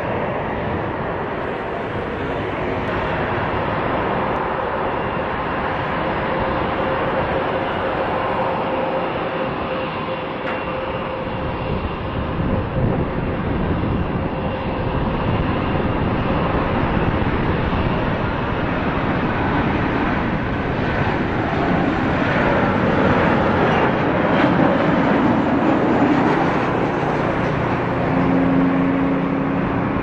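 Jet engines of a Boeing 737-800 on final approach, a steady roar with a faint whine over it, growing slightly louder toward touchdown near the end.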